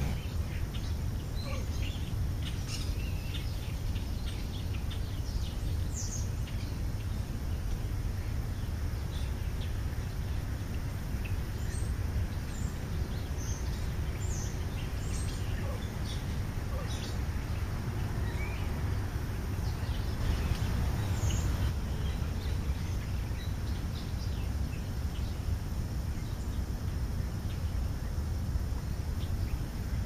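European starlings giving scattered short chirps and whistles, over a steady low rumble.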